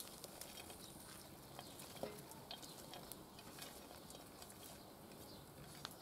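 Faint rustling and light clicks of sliced raw onion being pushed off a china plate into a cast-iron kazan and spread by hand. There is a sharper click about two seconds in and another near the end.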